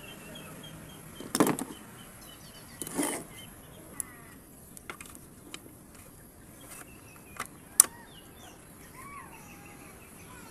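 Knocks and sharp plastic clicks as the repaired switch unit of a Panasonic MX-101SG1 blender is handled and fitted back into the blender's plastic motor base; the sharpest click comes about eight seconds in. Birds chirp faintly in the background.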